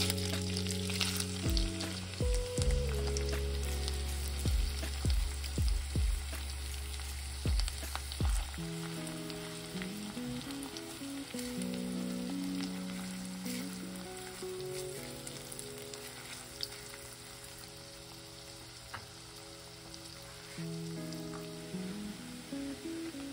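Chopped onion frying in melted butter, a steady sizzle in an enameled cast-iron Dutch oven. Background music plays over it; its deep bass part stops about eight seconds in.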